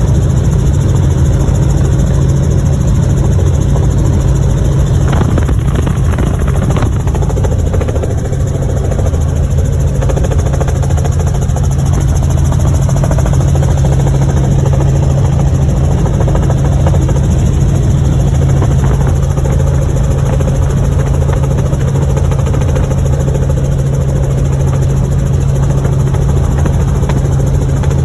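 Helicopter in flight: a loud, steady drone of engine and rotors with a strong constant low hum.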